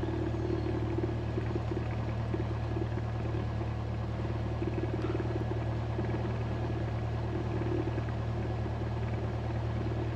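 Cessna's piston engine idling with a steady, even drone, heard from inside the cockpit.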